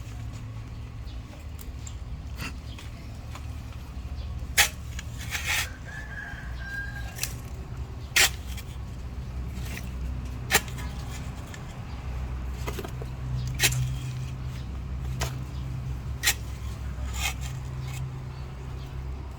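Low, steady hum of the small electric motors of radio-controlled construction models, rising and falling in strength, with sharp clicks or knocks every couple of seconds.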